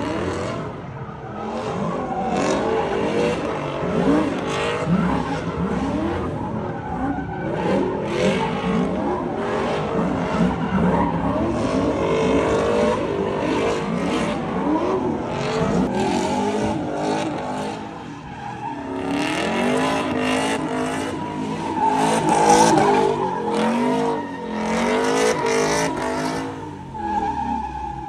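Car engine revving up and down over and over while doing donuts, tires skidding and squealing on the pavement. In the latter part a squeal holds at one steady pitch.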